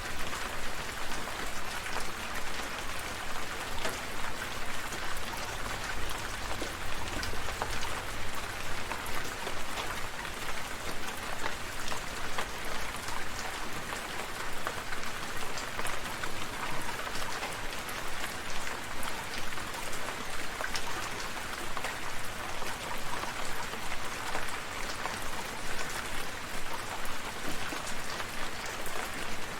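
Steady rainfall, a constant hiss thick with the ticks of individual drops striking surfaces.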